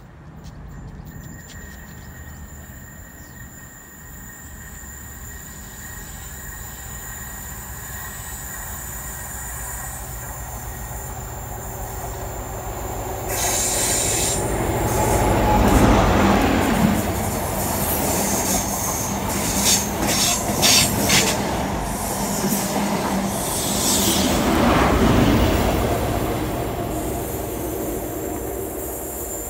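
High Speed Train with a Class 43 diesel power car approaching and passing close by, growing louder to a peak about fifteen seconds in. Its wheels give a quick run of sharp clicks over the rail joints as the coaches go by.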